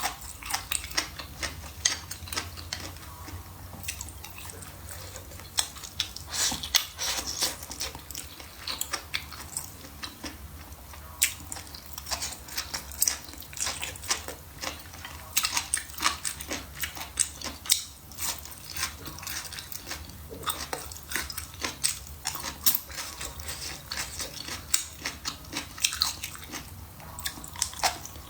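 A person chewing and biting food, a busy run of many quick small clicks and crunches.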